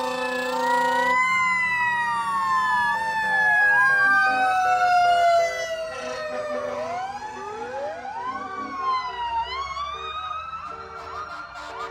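Several emergency-vehicle sirens wailing at once, their pitches sliding slowly up and down out of step with each other. About halfway through they get quieter and switch to quicker rising sweeps, then short rapid yelps near the end.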